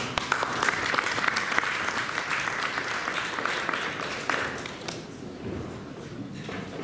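Audience applauding, a dense patter of many hands that starts abruptly and fades out after about five seconds.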